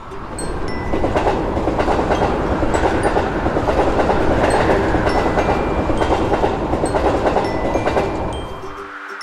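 Passenger train passing by, its wheels clicking rapidly over the rail joints. The sound builds over the first second, holds steady, and fades away near the end.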